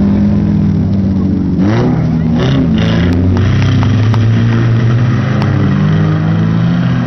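Several dirt-track race cars' engines revving hard as the pack races through a gravel corner, their pitch dipping and climbing again about a second and a half in, with a few sharp clicks in the middle.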